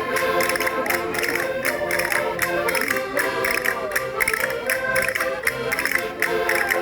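Concertinas playing a lively dance tune in sustained reedy chords, over a steady beat of sharp percussion strikes.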